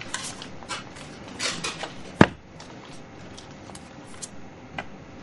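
Scattered short knocks, clicks and rustles of people moving about a lecture room, with one sharp, loud knock a little over two seconds in.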